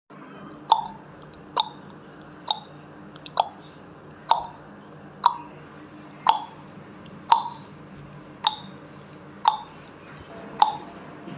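Countdown timer sound effect: a sharp tick about once a second, over a faint steady low hum.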